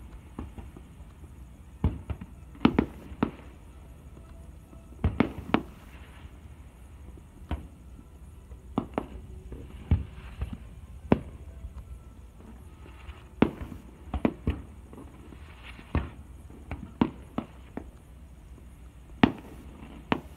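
Aerial firework shells bursting in an irregular series of sharp bangs, some coming in quick pairs, with faint crackling between them.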